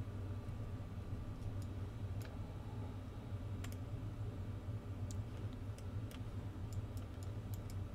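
Scattered clicks of a computer mouse and keyboard, a few seconds apart at first and coming in a quicker run near the end, over a steady low electrical hum.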